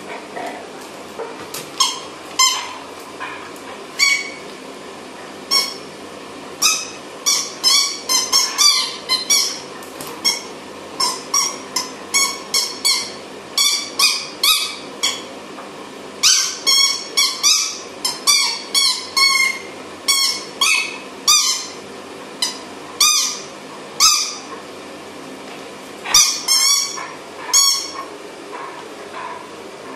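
A dog chewing a squeaky toy, squeezing out dozens of short, high squeaks, often in quick runs of several with brief pauses between.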